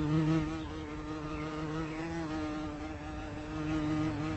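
A flying insect buzzing close by: one continuous drone whose pitch wavers slightly.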